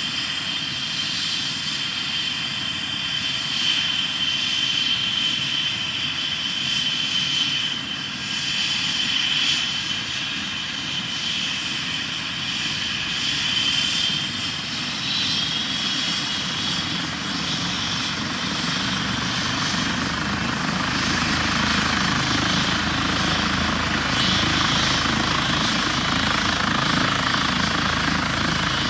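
Airbus H135 helicopter's twin turbines running with a steady high whine over the rotor noise. About twenty seconds in the sound grows fuller and a little louder.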